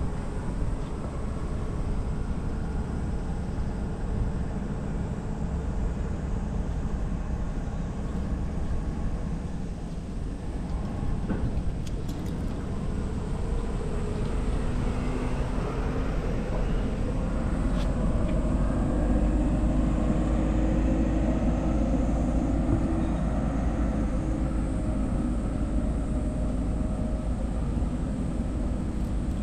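Steady low rumble of distant traffic, with an engine hum growing in the second half.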